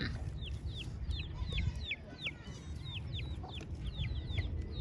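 Birds peeping continuously: short high-pitched notes, each falling in pitch, about three or four a second, in the manner of young poultry. A low rumbling noise runs underneath.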